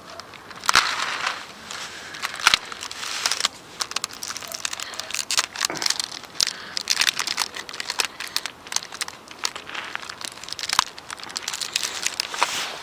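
Irregular crinkling and rustling with scattered sharp clicks, as of something being handled.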